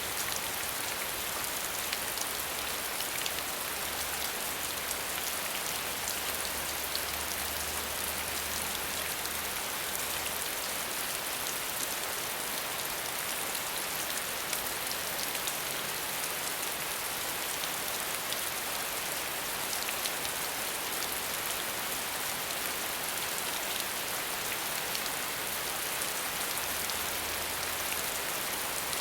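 Steady heavy rain: a dense, even hiss of falling drops, with individual drops ticking through it.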